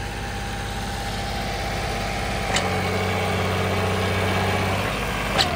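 Small John Deere tractor's diesel engine running steadily as it pulls a disc harrow through loose soil. The engine note shifts about two and a half seconds in, with a short sharp tick there and another near the end.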